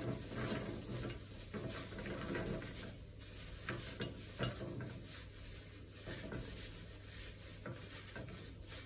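Quiet kitchen handling: light clicks and knocks of a utensil against a pot, with a sharper click about half a second in, over a low steady hiss.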